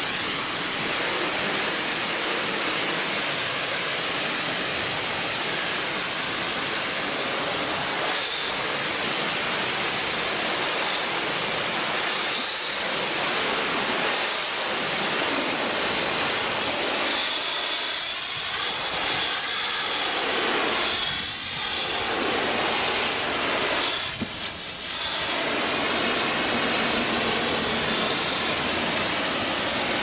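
High-pressure washer lance spraying a jet of water against the rear wall of a motorhome: a steady, loud hiss of spray. The tone shifts a few times in the second half as the jet moves across the panels.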